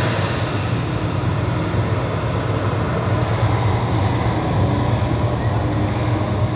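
Steady, loud low rumble of heavy engines, with an even hiss over it.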